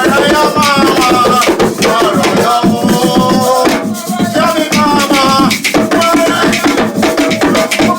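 Hand drums beating a steady, fast rhythm while voices sing or chant over them.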